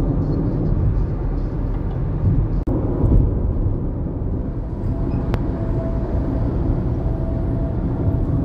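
Steady road and tyre rumble heard inside a car cabin at freeway speed.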